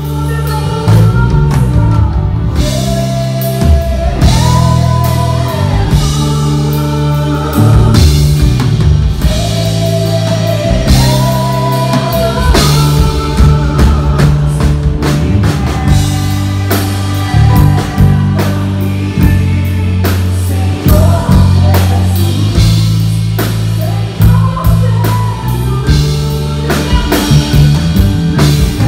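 Worship rock song played by a band: a lead vocal over drum kit and electric guitar, with a steady beat.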